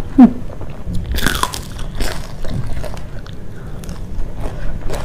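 Close-miked chewing and crunching of crisp fried fish with rice, with a loud crunchy bite about a second in and softer crunches after.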